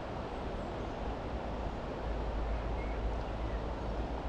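Steady outdoor wind and water noise, with wind rumbling on the microphone and growing a little stronger about two seconds in.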